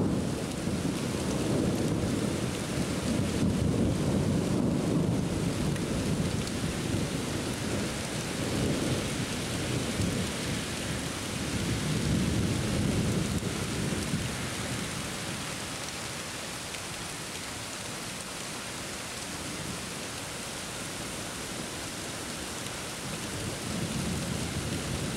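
Thunder rumbling in long, slow rolls over steady rain. The rumbling is strongest in the first several seconds and again about twelve seconds in, eases off through the second half, and swells once more near the end.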